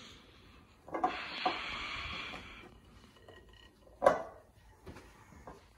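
Wooden spoon scraping and stirring a dry, floury bread dough in a glass mixing bowl for a second and a half, with a few knocks. About four seconds in there is one sharp knock. The dough still needs more water.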